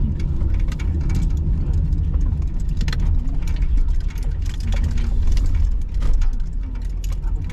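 Car cabin at low speed: a steady low engine rumble, with the turn-signal indicator ticking and light rain tapping on the windshield.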